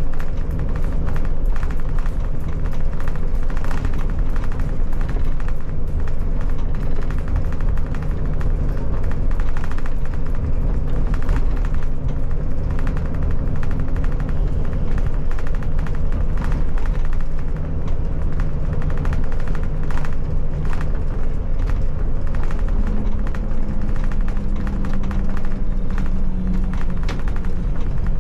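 Iveco Irisbus Crossway bus engine running steadily at road speed, heard in the driver's cab along with road noise and many quick rattles and knocks from the cab. About two-thirds of the way through, the engine note steps up a little in pitch.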